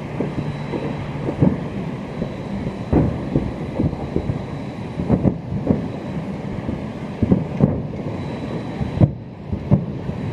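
Fireworks going off: an irregular string of booms and pops, some in quick runs, over a steady rumble with wind on the microphone.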